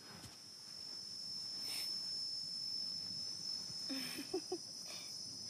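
Steady high-pitched trill of insects, with a few short voice-like sounds about four seconds in.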